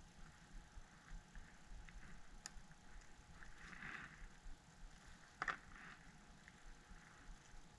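Old screen adhesive being peeled off an iPhone XS frame: faint rustling and small clicks, with a brief scrape about four seconds in and a sharper click about a second and a half later.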